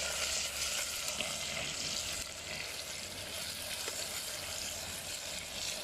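Tofu pan-frying in hot oil, a steady sizzle.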